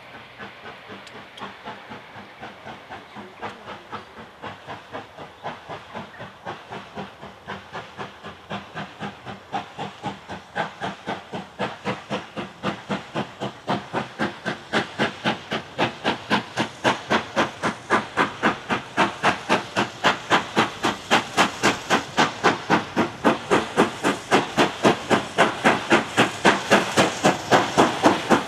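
BR Standard Class 7 'Britannia' two-cylinder steam locomotive No. 70013 working under steam: an even, rapid beat of exhaust chuffs, about three a second, growing steadily louder as it approaches.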